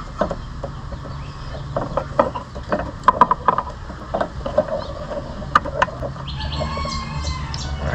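Hands handling a car's wiring loom and plastic connectors: scattered sharp clicks and rustles over a steady low hum. Near the end a rooster crows in the background.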